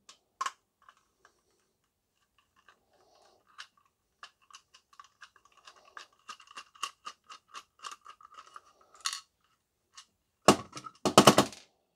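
Small screwdriver turning a Torx screw inside the hard plastic handle of a Dyson V7 cordless vacuum: a run of quick, light clicks with a faint metallic ring. Near the end comes a brief, loud clatter of hard plastic parts being knocked together.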